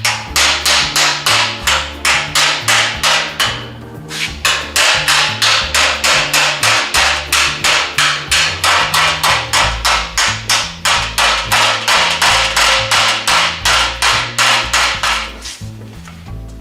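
Hammer blows on the sheet-steel lip of a 1966 Chevelle trunk floor, being pounded up against a dolly: a steady run of sharp metallic strikes, about three to four a second, with a brief pause about four seconds in and stopping near the end.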